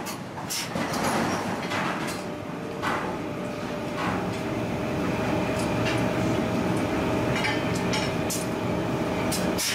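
Steady running of forging machinery, a continuous mechanical hum and rumble, with a few irregular metal clanks and knocks as red-hot steel is worked with tongs and a punch.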